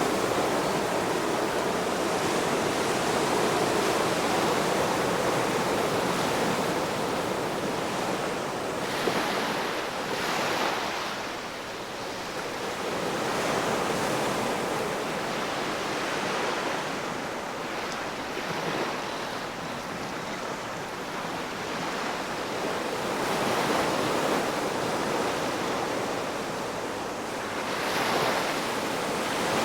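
Ocean waves breaking and washing on the shore, a continuous rush that swells and falls every few seconds.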